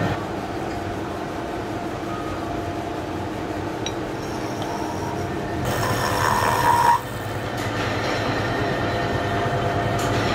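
Vertical milling machine running, its spinning form cutter shaping a round brush-handle blank with a steady mechanical hum. From about six seconds in the cut grows louder with a high squeal that stops abruptly about a second later.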